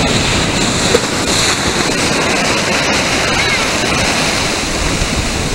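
Shallow ocean surf washing in and foaming around the legs: a steady, loud rush of breaking water.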